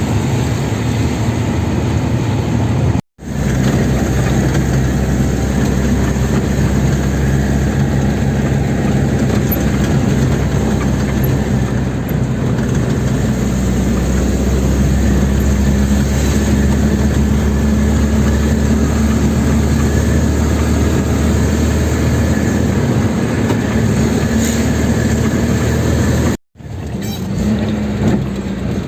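Van engine and road noise heard from inside the cabin while driving, a steady low hum. It cuts out for an instant twice.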